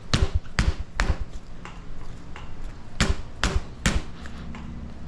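A rubber handlebar grip being knocked onto the end of the bar: three sharp thumps in the first second, then three more about three seconds in.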